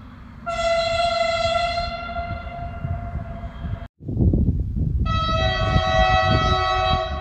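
Train horn blasts, twice. A regional railcar's horn is held for about three seconds and cuts off abruptly. About a second later a second long horn blast sounds several tones together from a train approaching a level crossing, over rumbling wind noise.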